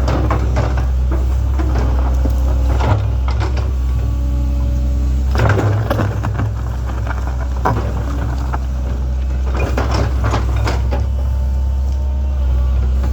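Link-Belt 2700 excavator's diesel engine running steadily under working load, with shifting hydraulic tones and repeated knocks and scrapes from the bucket and boom as it digs.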